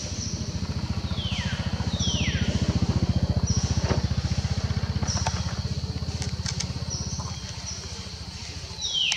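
A small engine running with a rapid, even low throb that swells over the first few seconds and fades out after about seven seconds. High calls falling steeply in pitch come as a pair about a second in, and again just before the end.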